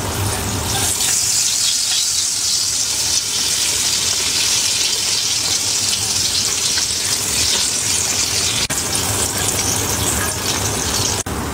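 Chocolate-flavoured puffs deep-frying in hot oil in a wok: a loud, steady sizzle, briefly broken twice near the end.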